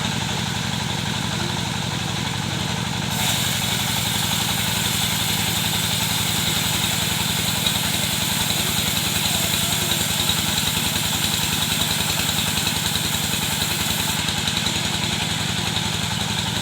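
Engine-driven wood saw: the engine runs steadily, and from about three seconds in until a couple of seconds before the end a high hiss is added as the blade cuts through wood. The hiss starts and stops abruptly.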